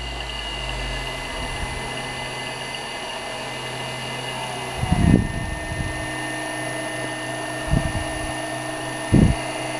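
Rewound 0.75 hp three-phase induction motor running unloaded from a variable-frequency drive at about 95 Hz: a steady electric hum and whine with a high thin tone from the drive. About halfway through, one tone slides a little lower in pitch. Three short dull knocks come near the middle and end.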